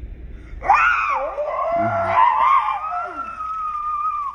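A young girl screaming with excitement: one long high shriek starting about a second in, swooping up and down at first and then held steady for about three seconds.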